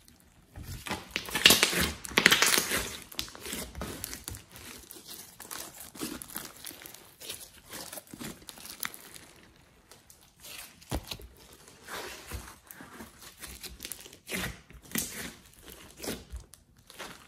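Glossy homemade slime squished and stretched by hand, giving irregular wet, sticky crackling and clicking as it pulls and presses. The loudest stretch of crackling comes about one to three seconds in.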